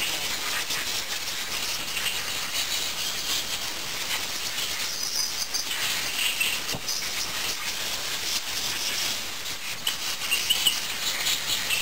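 Compressed-air blow gun hissing steadily, its air stream wavering, as it blows soapy leak-test water off a Rochester carburetor body to dry it.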